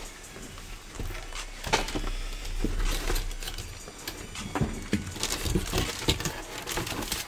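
Cardboard box being opened by hand: the lid and flaps slide and rub, with scattered light taps and rustles as the contents are handled.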